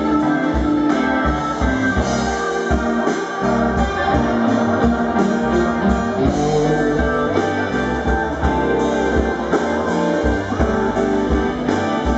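Live rock band playing: amplified electric guitars over a drum kit.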